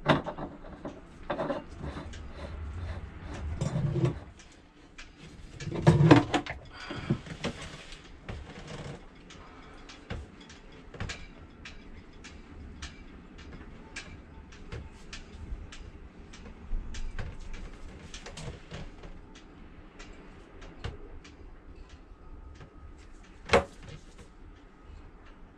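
Scattered clicks and knocks of hand work on a bronze seacock, among them the clicks of a caulking gun being pumped to lay sealant. There are heavier bumps a few seconds in and one sharp knock near the end.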